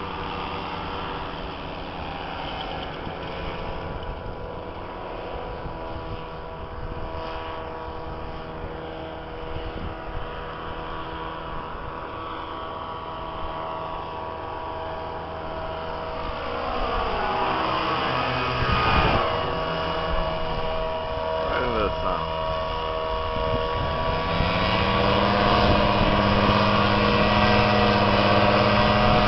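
Paramotor engines and propellers droning steadily, more than one at a time. About two-thirds of the way through, the pitch bends as one flies past. Near the end a close engine runs louder and steady.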